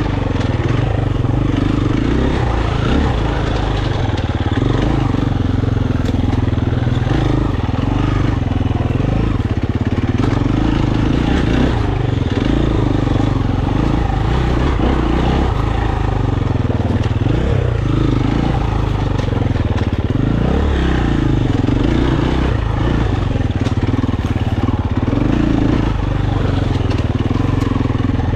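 KTM 350 enduro motorcycle's single-cylinder four-stroke engine running continuously while being ridden, its note rising and falling with the throttle.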